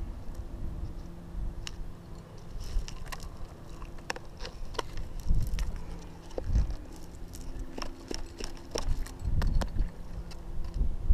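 Scattered metallic clinks and rattles of a rack of wired climbing nuts and carabiners being handled as a nut is picked out and set in a crack, with a few dull low bumps from hands and gear.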